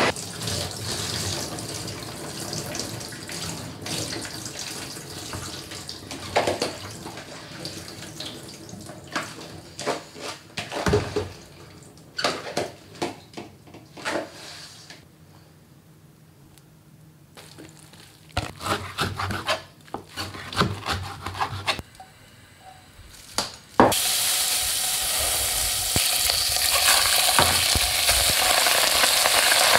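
Scattered clicks and knocks of kitchenware being handled. Then, in the last quarter, a sudden steady sizzle begins as beef and soaked seaweed go into sesame oil in a steel pot to stir-fry for Korean seaweed soup.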